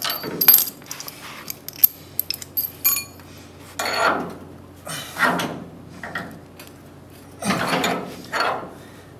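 Bolts and washers clinking against each other and against the steel transaxle mount as they are handled and fitted into a VW transmission mounting, with a run of sharp metallic clicks in the first few seconds. Several short, louder rustling scrapes follow later on.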